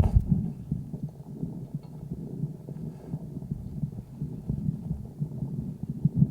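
A calf's chest sounds picked up through a homemade stethoscope microphone on the right side of the chest: low breath sounds with the heartbeat pulsing underneath. The recording is from the calf's first examination, at the start of follow-up for its lung sounds.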